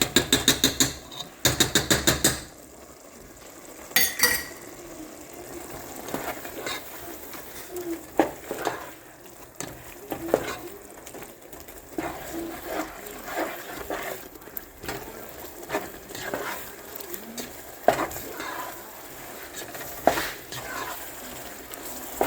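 A spoon is tapped rapidly against the edge of a pan in two quick runs of taps, likely knocking off tomato paste. Then the mixture is stirred, with scattered scrapes and knocks of the spoon on the pan and a light sizzle of ground beef and onion frying.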